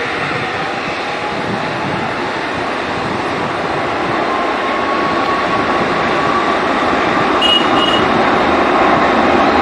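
Jet airliner engines running at high power, a steady loud roar that slowly grows louder as the aircraft comes nearer, with a faint whine rising out of it about halfway through.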